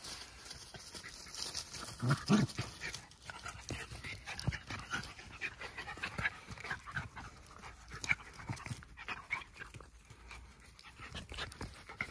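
Jack Russell terriers panting, with many short, irregular dog sounds; the loudest comes about two seconds in.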